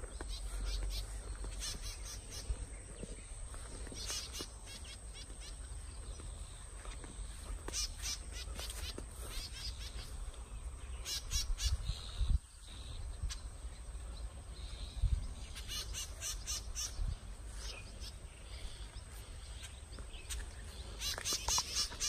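Small birds calling: quick runs of short, high notes that come in bursts every few seconds, over a low rumble.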